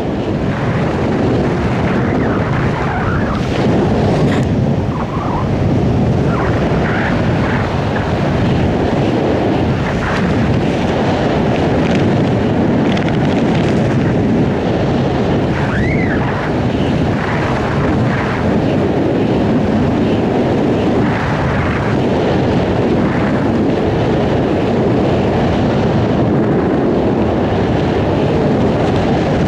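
Steady wind rushing over the microphone of a skydiver's camera.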